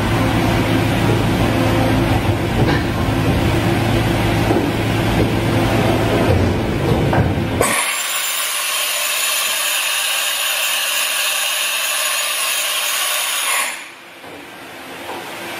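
Doosan HM-1250 horizontal machining center running, with a steady low motor and pump hum as its spindle head moves between positions. About eight seconds in, the hum drops away and a high hiss with steady high-pitched tones takes over for about six seconds, then stops suddenly.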